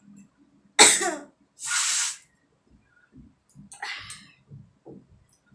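A woman coughing hard while trying to make herself sneeze. One loud, sudden burst comes about a second in, followed by a long breath out, and a smaller burst near four seconds.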